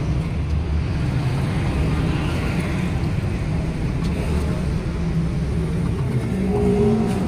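Steady low rumble of vehicle engines and road traffic.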